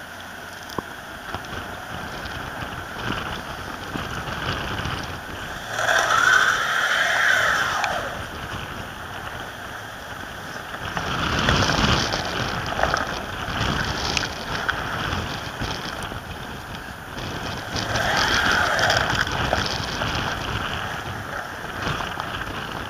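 A 1994 Pontiac Grand Am running and driving slowly over ice and slush, engine and tyre noise together. It swells louder three times as the car moves off and pulls around.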